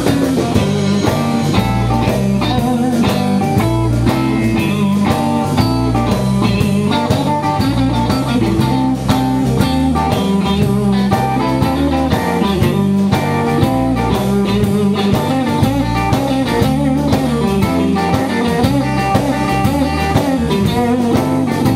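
Live blues band playing an instrumental break: a Stratocaster-style electric guitar plays lead lines with bent notes over electric bass and drum kit, keeping a steady beat.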